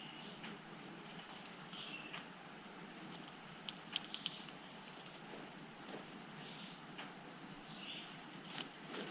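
Faint outdoor ambience with a steady, high, pulsing insect trill, and a few sharp clicks about four seconds in.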